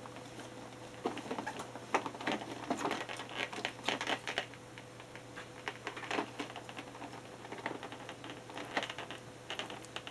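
Windowed cardboard figure boxes being handled and shifted: irregular taps, knocks and crinkles of the cardboard and clear plastic packaging, over a faint steady electrical hum.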